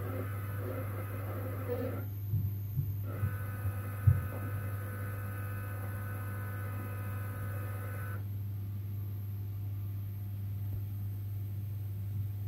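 Stepper motor driven by a controller board: a steady low hum with a whine of several steady tones over it. The whine stops about two seconds in, comes back a second later and cuts off again around eight seconds. A few light clicks come between two and four seconds in.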